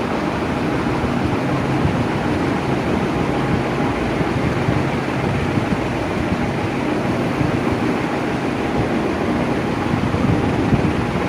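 Electric fan running steadily at constant speed: an even whooshing rush of moving air with a faint motor hum.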